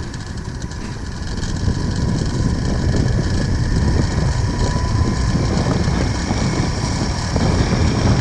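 Zipline trolley running down the steel cable, its pulleys whirring with a steady whine over a low rumble of wind on the microphone. It grows louder over the first couple of seconds, then holds steady.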